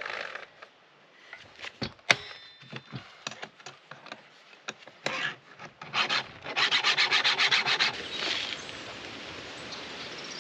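Chainsaw being cleaned by hand: scattered scrapes and clicks, then a brisk run of brushing strokes, about ten a second, for a second and a half about two thirds of the way in, followed by softer scratching.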